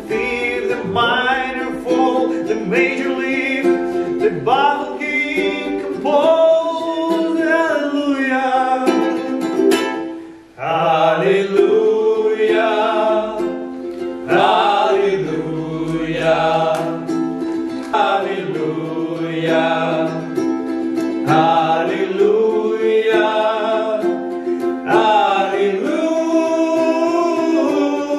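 Ukulele strummed while several men sing together. The singing breaks off for a moment about ten seconds in, then comes back in.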